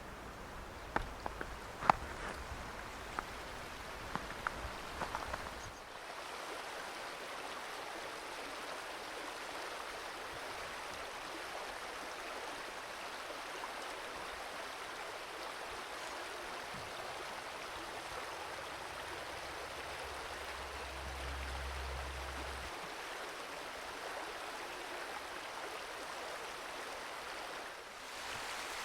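A winter mountain stream flowing, a steady rush of water. In the first six seconds a few sharp clicks and knocks sound over a low rumble.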